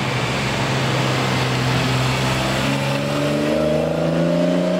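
Nissan 350Z's V6 engine and exhaust running loud as the car drives off, with a steady drone whose pitch climbs over the last couple of seconds.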